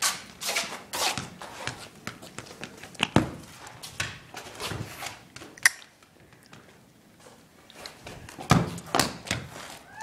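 A football kicked and bouncing on asphalt: a few sharp thuds, with footsteps and scuffs between them.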